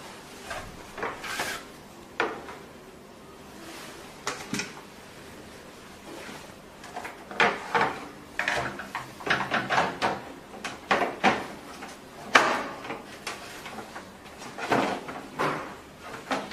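Irregular clicks, knocks and scrapes of hard plastic and metal parts being handled and fitted as the machine base is screwed on, with a busy cluster of handling noises in the middle.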